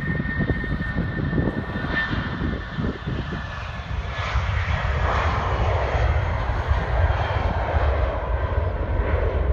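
Turbofan engines of a Wizz Air Airbus A320-family jet airliner at takeoff power on its takeoff roll. A thin steady whine is heard at first; from about four seconds in, a loud jet roar swells as the aircraft accelerates past.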